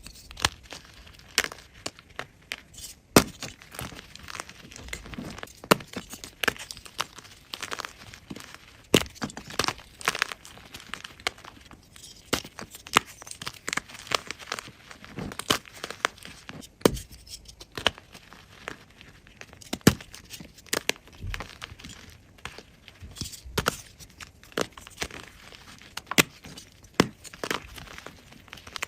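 Block of gym chalk (magnesium carbonate) being crushed close to the microphone: a dense, irregular run of sharp crunches and crackles, several a second.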